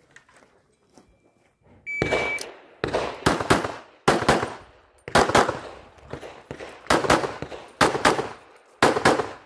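An electronic shot timer gives its short, high start beep, then a pistol is fired rapidly, the shots mostly coming in quick pairs with brief pauses between strings.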